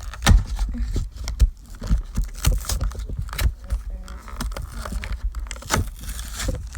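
Toy car packaging being handled and pulled open: crinkling, scraping and tearing, with many sharp clicks and knocks.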